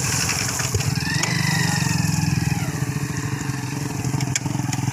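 Motorcycle engine running at low speed with an even throb, the bike being ridden over a spread sesame crop to thresh it.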